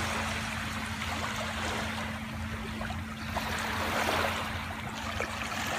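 Small waves lapping and washing on a pebbly sand shore: an even hiss of water with a steady low hum beneath it.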